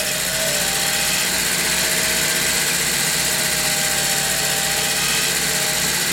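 Cue lathe running steadily while a cutting tool takes a pass along the spinning white ferrule tenon of a cue shaft, peeling off stringy chips: an even motor hum with a steady hiss from the cut.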